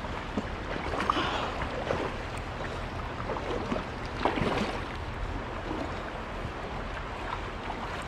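River water moving and splashing, with louder splashes about a second in and again around four seconds, over a steady rumble of wind on the microphone.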